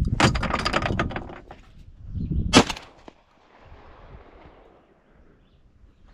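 A shotgun fires once, about two and a half seconds in, and the report fades away over the next couple of seconds. Before it comes a second or so of rustling and clatter as the gun is snatched up.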